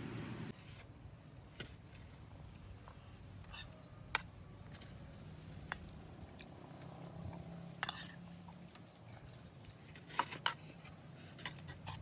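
A steady rumbling noise cuts off about half a second in. After it come sparse, sharp light clicks and taps, about one every second or two, with a quick cluster near the end, over a faint low hum.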